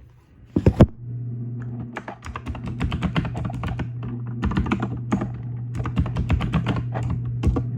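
A pair of sharp knocks about half a second in, as a phone is set down on a desk, then fast typing on a computer keyboard, many keystrokes a second, over a steady low hum.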